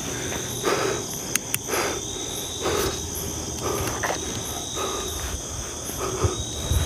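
Night chorus of crickets and other insects, a steady high-pitched drone. Soft footsteps on a grassy path fall about once a second.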